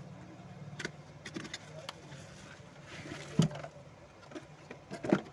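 Clicks and knocks of things being handled, with two louder knocks about three and a half and five seconds in, over a steady low hum.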